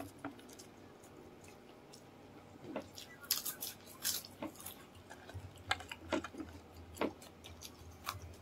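Close-up eating sounds from people eating chicken feet adobo and crispy chicken skin by hand: irregular chewing and mouth clicks, sparse at first and busier from about three seconds in.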